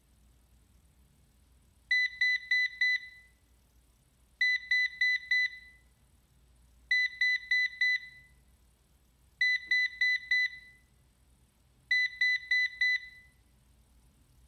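Ecovacs DEEBOT N79S robot vacuum's error beep sounding from its dock: five groups of four short, high-pitched beeps, each group about two and a half seconds after the last. The owner traced this repeating 4-beep error to a failing battery, and a replacement battery cured it.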